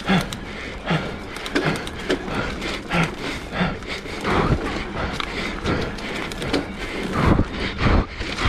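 Electric mountain bike clattering down a rough dirt trail: frequent short clicks and rattles from the frame and drivetrain, and knocks about every half-second as the wheels hit bumps and roots, over a low rumble of wind on the microphone.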